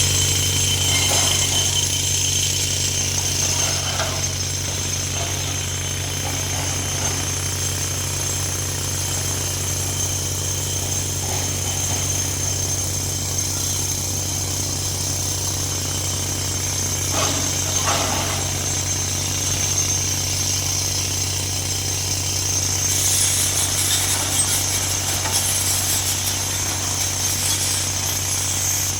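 Heavy quarry machinery running steadily, with a constant low drone and a high whine. There are a few short knocks about two-thirds of the way through, and more hiss near the end.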